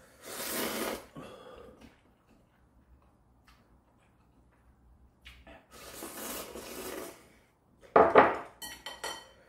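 Noodles being slurped from bowls: two long slurps, about a second each, at the start and around six seconds in. Near the end comes a louder slurp, then chopsticks clinking against a bowl.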